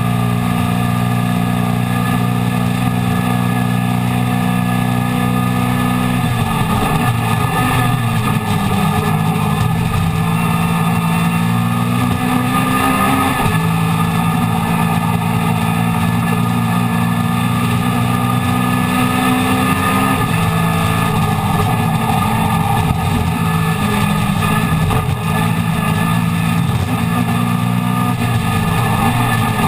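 Mini Miglia race car's A-series four-cylinder engine at racing speed, heard from inside the stripped cabin. The engine note climbs steadily and drops back sharply about six, thirteen and twenty seconds in and again near the end, over steady road and wind noise.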